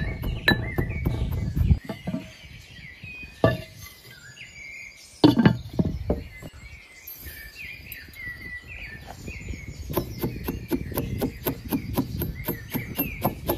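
Metal pestle pounding wheat grains in a metal mortar: a rapid run of knocks that stops about two seconds in and starts again near the end, with two single knocks in between. Small birds chirp throughout.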